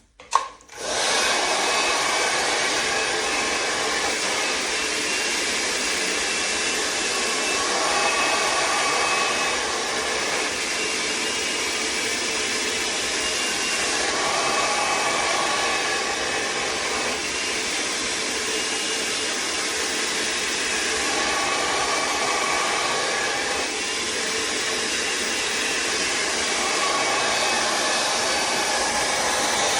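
L'ANGE HAIR Soleil hair dryer switched on with a click and blowing steadily, a dense rush of air with faint wavering tones in it; it cuts off sharply at the end.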